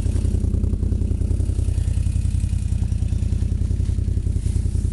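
Quad (ATV) engine running steadily at low revs, with a rapid, even exhaust pulse.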